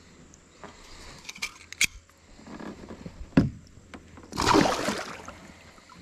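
Handling noises in a kayak: a few light clicks and a sharp knock against the hull, then a splash of about half a second near the end as the caught trahira is let back into the water.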